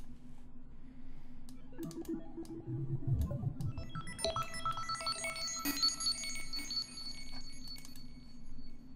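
Steinberg HALion 6 software synthesizer preset being auditioned: a low held synth tone with some pitch movement, joined about four seconds in by a cluster of high, sustained tones.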